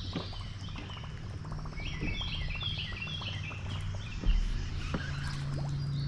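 A songbird singing quick, repeated chirping phrases over a steady low hum, with small clicks and one louder knock about four seconds in.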